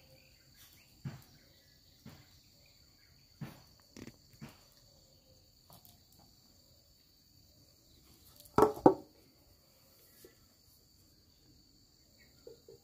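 Crickets or other insects chirring steadily at a high pitch, with scattered light taps. About eight and a half seconds in comes a loud double clatter: a stainless steel dog bowl set down on the stone floor.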